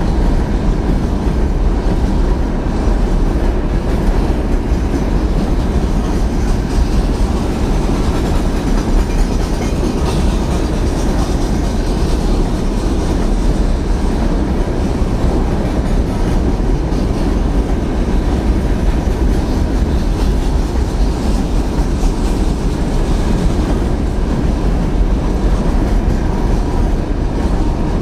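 A train passing close by, its wagons and wheels making a steady, unbroken rumble on the rails.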